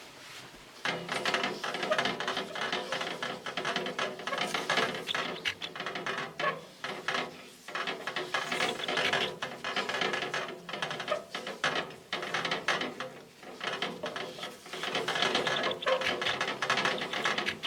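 Fireplace door glass being scrubbed by hand with wood ash: continuous rapid rubbing strokes with a gritty, squeaky texture, broken by a few brief pauses.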